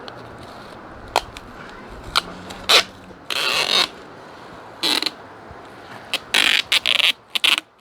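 Adhesive tape being pulled off the roll in a series of short rasping rips, the longest about half a second, preceded by a few sharp clicks as it is handled.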